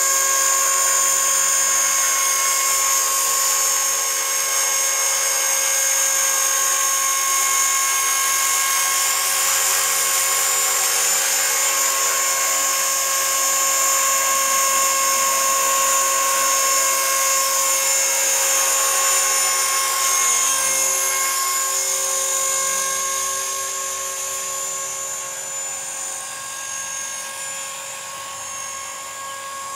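EXI 450 SE electric RC helicopter (450-size T-Rex clone) hovering: a steady high-pitched whine from its electric motor and gears over the rotor noise. It grows fainter over the last third as the helicopter moves away.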